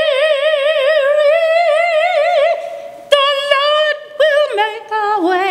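A woman singing a gospel hymn solo. She holds one long note with wide vibrato for about two and a half seconds, then sings a run of shorter, sliding phrases with no clear words.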